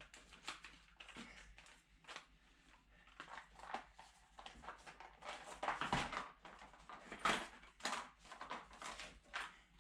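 Irregular rustling and light clicks of small spare parts and their packaging being handled.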